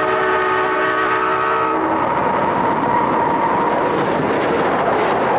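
Nathan P01235 five-chime air horn on a GE E60 electric locomotive sounding a steady chord, which cuts off about two seconds in. The rush of the passing train follows.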